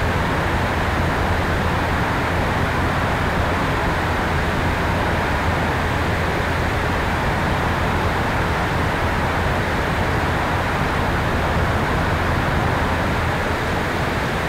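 Steady rushing of air and propeller noise on a tail-mounted camera of an electric RC airplane in flight, even and unchanging throughout.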